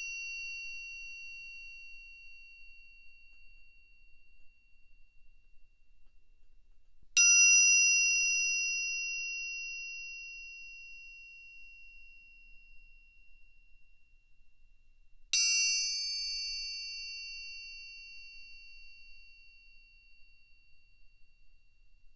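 Triangle struck with a metal beater twice, about eight seconds apart, about 7 and 15 seconds in; each strike rings with several high overtones and fades slowly. The fading ring of an earlier strike opens the stretch. It is picked up by a binaural dummy-head microphone.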